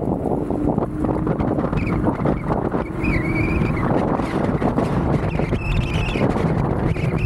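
Wind rushing over the microphone on a moving electric scooter: a dense, steady low rumble. A faint wavering whine rises above it twice, a few seconds apart.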